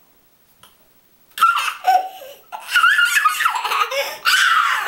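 A toddler laughing and squealing in high-pitched bursts, starting about a second and a half in.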